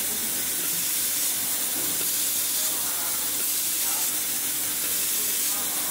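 Steady hiss from an automatic laser welding machine as its head welds along a sheet-metal seam, over a faint steady hum.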